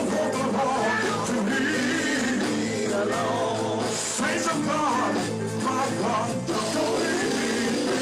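Live gospel music in church: singing over a full band accompaniment that plays steadily throughout.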